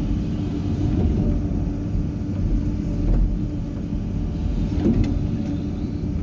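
Excavator's diesel engine running steadily: a low rumble with a steady hum and a few faint knocks.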